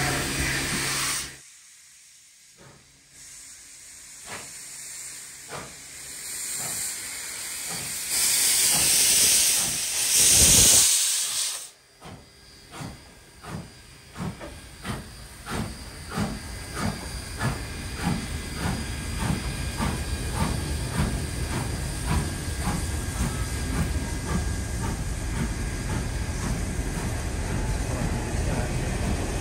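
Steam locomotives 3526 and 3801 departing: a loud hiss of steam, then exhaust chuffs that start about one a second and quicken steadily as the train gets under way.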